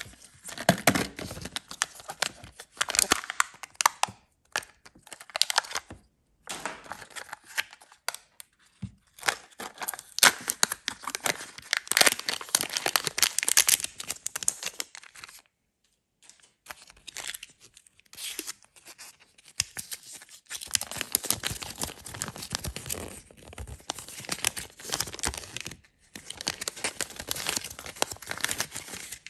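Kinder Joy egg packaging being unwrapped by hand: foil seals peeled off, the plastic toy wrapper torn open and a paper leaflet crinkled, in uneven bursts of crackling and ripping with short pauses between them.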